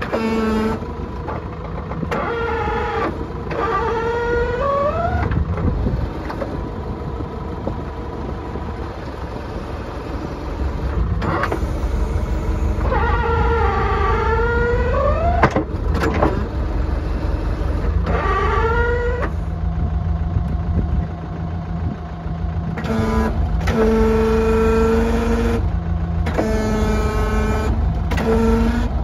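ASV SR80 compact track loader with its diesel engine running and its hydraulics working the loader arm and bucket. A whining tone that dips and rises in pitch comes and goes in several spells of a few seconds each over the steady low engine rumble.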